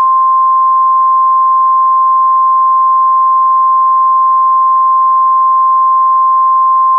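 NOAA Weather Radio's warning alarm tone: one steady, loud, single-pitched beep held without a break over a faint radio hiss. It signals that a weather warning broadcast is about to be read.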